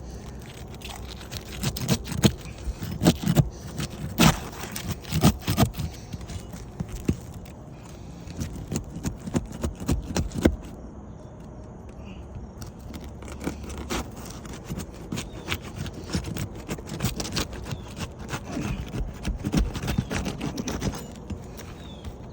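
Irregular scraping and cracking of asphalt shingles being worked loose by hand for a repair, in two busy stretches with a quieter pause between. The shingles are stuck down, the mat sticking to the tab, so they resist coming apart.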